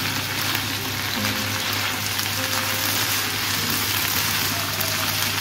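Julienned potato strips sizzling steadily in hot oil in a frying pan, a continuous even hiss of potatoes frying.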